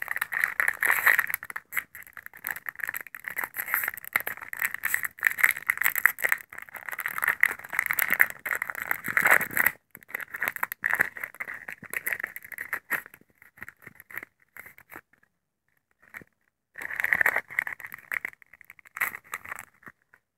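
Foil wrapper of a Pokémon Steam Siege booster pack crinkling as it is torn open and peeled off the cards. The crackling is dense for about ten seconds, then thins to scattered rustles, with one more short burst near the end.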